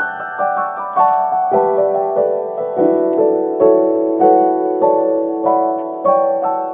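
Background piano music: a gentle melody with notes struck at a slow, even pace, about every half second, each ringing on as it fades.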